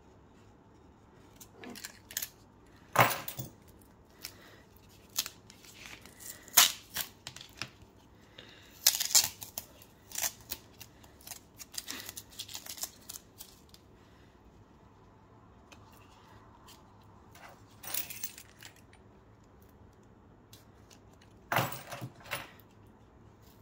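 Tape being picked and peeled off a hard plastic top loader: scattered short rasps of tape tearing away, with light clicks and taps of the plastic holder in between and pauses between bursts.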